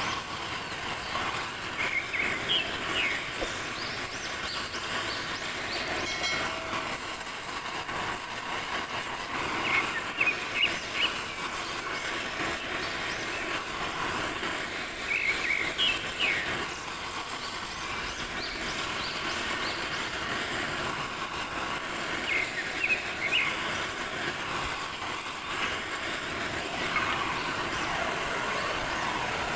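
Gas cutting torch flame hissing steadily as it heats a metal pipe for bending. Clusters of short high chirps recur every several seconds over the hiss.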